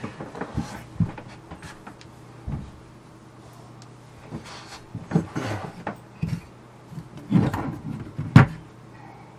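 A metal Doppler radar control box being handled on a wooden tabletop: scattered knocks and scrapes, with a sharp knock near the end as the box is turned over and set down on its end.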